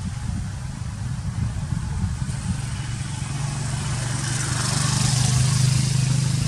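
A motor vehicle's engine running close by, a steady low hum that grows louder over the second half, with rising road hiss as it nears.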